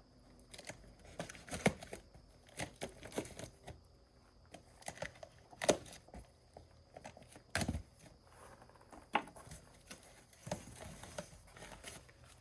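A shipping package being opened by hand: irregular crinkling and rustling of packing material and tearing, with scattered sharp clicks and knocks.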